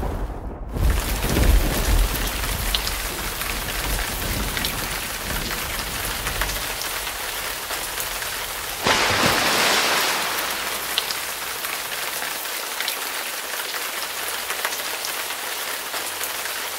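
Steady rain pattering on feeders and surfaces, with scattered drop ticks. Thunder rumbles low in the first few seconds and dies away, and the rain hiss surges briefly louder about nine seconds in.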